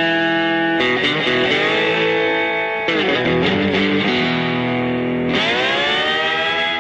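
Background music led by a guitar playing long held notes that change every second or two, with a note sliding up about five seconds in.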